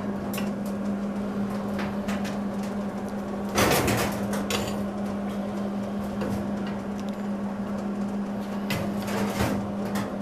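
Wire-feed welder tacking steel: a short crackling burst of about a second a third of the way in, with a few sharp metal clicks before and after it, over a steady hum.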